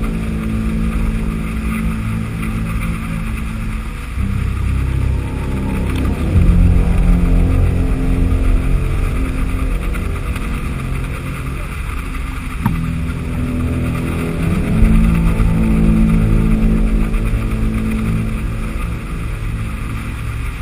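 Motorboat engine of a small inflatable boat running under way, its note shifting up and down a few times.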